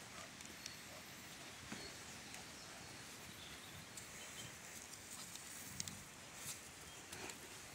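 Faint scuffling of a cane corso and a presa canario play-wrestling on gravel: scattered light clicks and small thumps of paws on loose stones.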